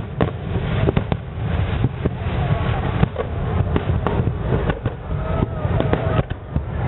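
Distant aerial fireworks shells bursting: a run of sharp bangs at uneven intervals, roughly one a second, over a steady low rumble.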